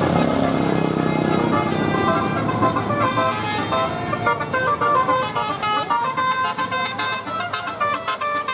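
Telolet bus horn, a multi-tone air horn, playing a quick tune of stepped notes over the rumble of a bus engine; the horn tune takes over about three seconds in.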